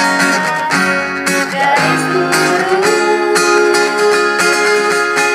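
Acoustic guitar strummed in a steady rhythm while a young woman sings in Indonesian.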